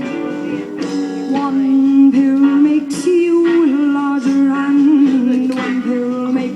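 Music: a voice singing held, gliding notes over guitar accompaniment.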